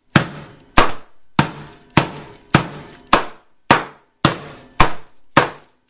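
Heavy frying pan struck repeatedly on chicken breast under parchment paper on a plastic cutting board, about ten evenly spaced thuds a little under two a second, pounding the meat flat.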